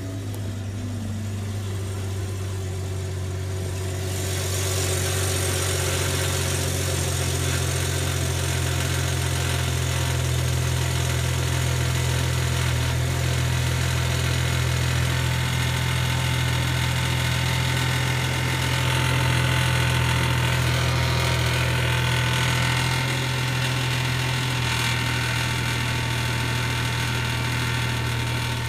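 A steady low engine hum, with a hiss that grows louder about four seconds in and then holds.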